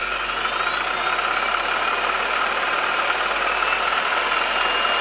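CAT DX58U corded reciprocating saw running, a steady motor whine that climbs slowly in pitch as it runs.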